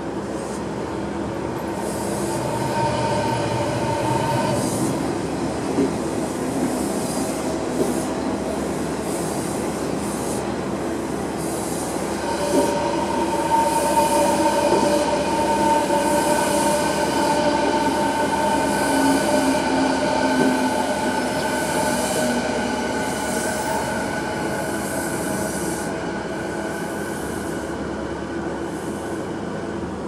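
Odakyu Line electric commuter train passing close by over the level crossing, with a steady rumble of wheels on rail. A sustained high-pitched tone rides over the rumble, loudest from about twelve seconds in, and fades near the end.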